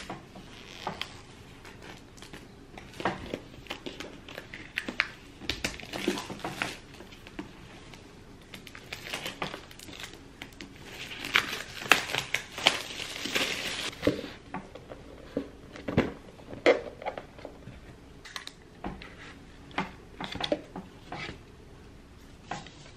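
Plastic shrink wrap crinkling and tearing as it is peeled off a cardboard iPad box, with scattered taps and clicks as the box is handled and opened. The crinkling is densest about eleven to fourteen seconds in.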